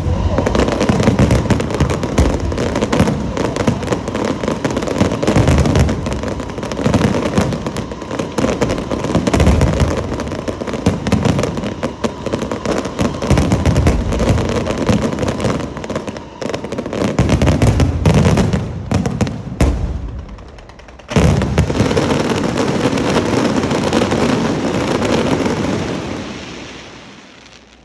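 Aerial fireworks shells bursting in a dense, rapid barrage of overlapping booms and crackles. The bursts ease briefly about twenty seconds in, then resume all at once before fading away near the end.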